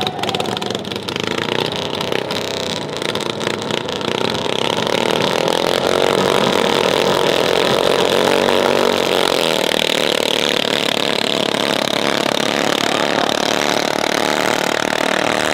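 Engine of a highly modified racing rice tractor running hard, climbing in revs over the first five seconds and then held loud and steady at high revs.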